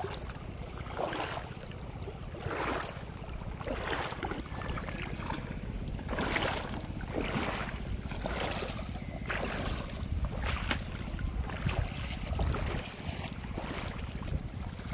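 Footsteps wading through shallow river water over stones, a splash about once a second, with wind rumbling on the microphone.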